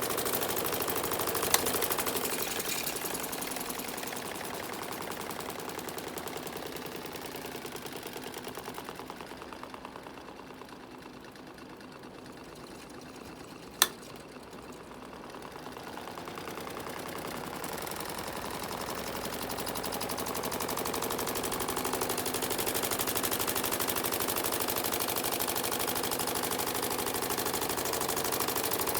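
Small washing machine running with a rapid mechanical rattle, growing quieter in the middle and louder again toward the end, with two sharp clicks, one shortly after the start and one about fourteen seconds in.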